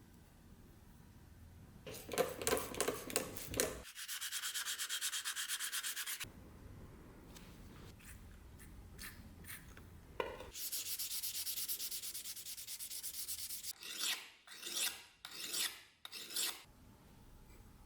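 An abrasive being rubbed by hand over a rusty carbon-steel pchak knife blade to clean off the rust. The strokes come in bursts: a few strokes about two seconds in, two longer runs of rapid, even back-and-forth strokes, then four slower separate strokes near the end.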